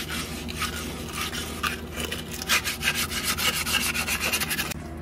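Sanding rust off the car's underbody steel by hand with an abrasive sheet: scraping back-and-forth strokes that grow quicker from about halfway and stop suddenly just before the end.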